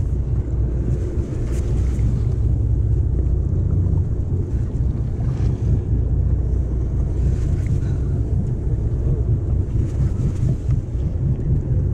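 Wind buffeting the microphone over the steady low rumble of a sportfishing boat at sea.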